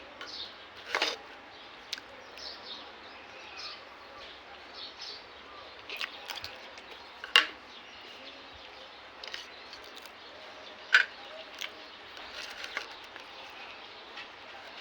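Dried beef frying in oil: a steady sizzle with three sharp pops, about one, seven and eleven seconds in. Birds chirp throughout.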